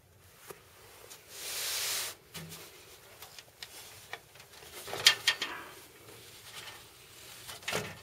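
Handling noise of an empty metal Corsair Graphite Series PC case being turned over: a brushing swish about a second and a half in, then clusters of sharp clicks and light knocks from the chassis around five seconds and again near the end.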